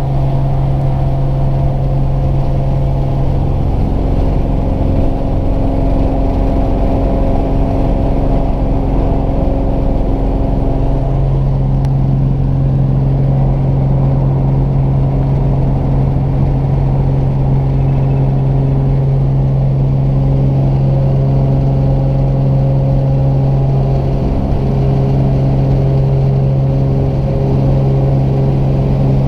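Single-engine light plane's piston engine and propeller heard from inside the cabin: a loud, steady low drone with higher steady tones above it, strengthening about eleven seconds in, during the taxi and takeoff run.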